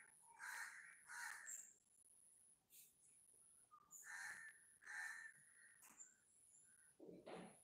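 Crows cawing, two pairs of harsh caws with a pause of a couple of seconds between the pairs.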